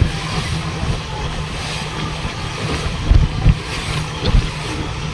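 Boat engine running steadily at sea, with water rushing along the hull. A few sudden low thumps of wind hit the microphone in the second half.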